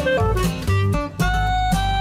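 Background music: plucked guitar notes stepping up and down over a bass line, cutting off abruptly at the end.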